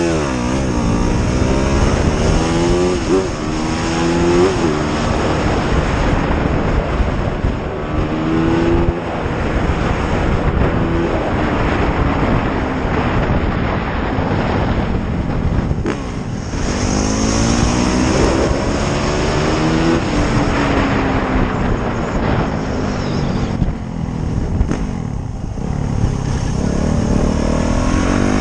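Motorcycle engine under way, its pitch repeatedly rising as it accelerates through the gears and dropping as it eases off, with heavy wind noise on the microphone.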